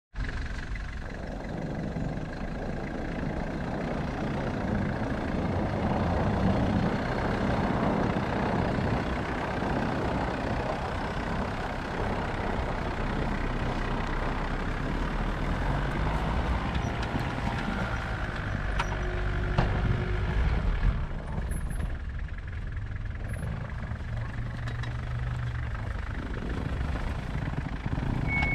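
Mitsubishi Delica 4x4 van's engine running as the van drives across snow-covered ground and pulls up a steep dirt bank.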